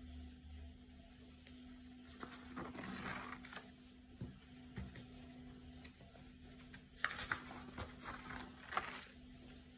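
Paper pages of a spiral-bound notebook being turned and handled: two spells of soft rustling and scraping, the second with a few light clicks, over a faint steady hum.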